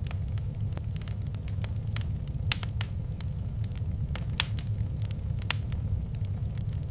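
Wood fire in a fireplace crackling, with irregular sharp pops, the loudest a few seconds in, over a steady low rumble.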